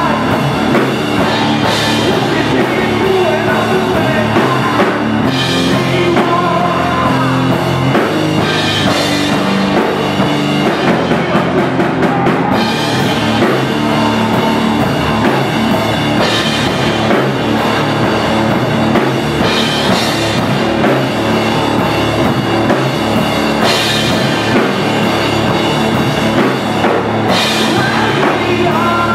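Loud live rock from a guitar-and-drums duo: electric guitar through amplifiers and a drum kit played hard with cymbals.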